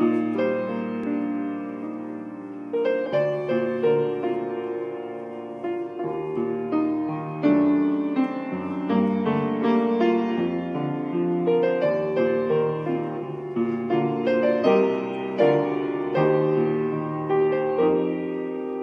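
Solo piano playing the introduction to a sacred song, its notes and chords struck one after another and left to ring and fade.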